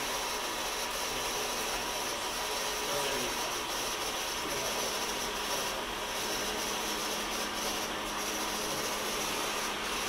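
Steady mechanical whir and hiss of machinery running, unchanging throughout.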